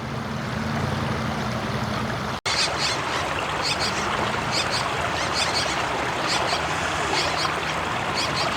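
Small birds chirping in quick clusters of short high notes, over a steady rushing noise. A low steady hum in the first couple of seconds stops when the sound drops out briefly about two and a half seconds in.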